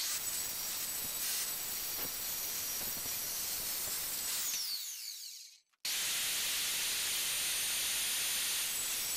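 Evolution metal-cutting circular saw cutting through steel tubing: a loud, steady, high-pitched cutting noise. About five seconds in the motor winds down and the sound cuts off, then another cut starts up and runs on.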